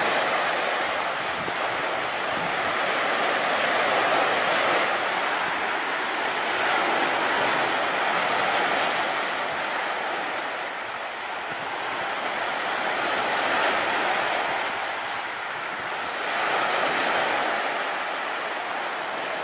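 Surf: small waves breaking and washing up a pebble beach, the sound swelling and easing every few seconds.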